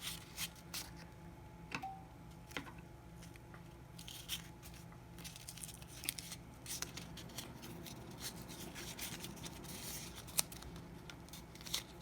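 Gaff tape being pulled off the roll and wrapped around a coax cable, with crackly rasping stretches and scattered sharp clicks of handling.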